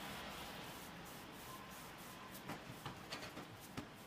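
Faint soft rubbing of hands rolling a log of dough on a wooden tabletop, with a few light taps in the second half.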